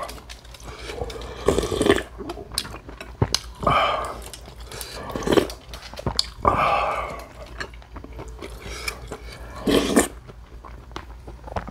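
Close-miked eating: wet chewing with many small smacking clicks, and a louder mouth sound every second or two as spoonfuls of soup and rice go in.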